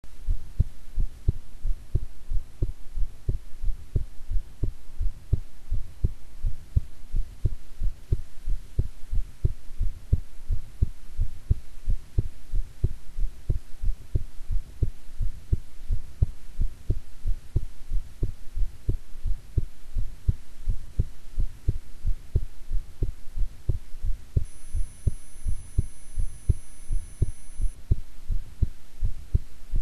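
A woman's heartbeat heard close up: a steady, even rhythm of low thumps, with a faint hum underneath.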